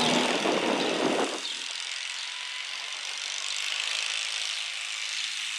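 Stock altered garden tractor engine running loud, then dropping sharply to a quieter steady run about a second in as the throttle comes off.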